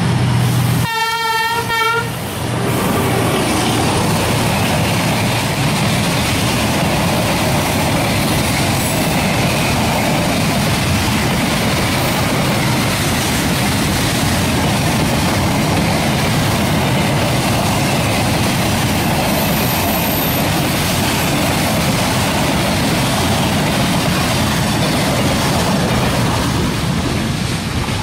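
A diesel-electric locomotive horn sounds one short blast about a second in, then a long freight train of boxcars rolls past on the rails with steady wheel-and-wagon noise, easing slightly near the end as the last wagons go by.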